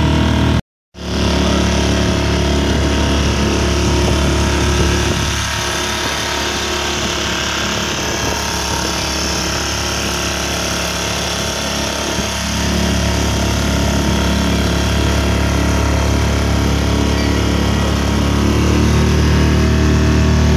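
Outboard motor of a small folding boat running steadily under way. It eases off for several seconds mid-way and picks up again, with a brief cut in the sound about a second in.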